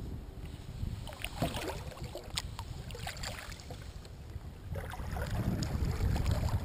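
Water splashing and dripping around a paddled kayak, with small splashes and drips about one to four seconds in. Wind rumbles on the bow-mounted microphone and grows louder near the end.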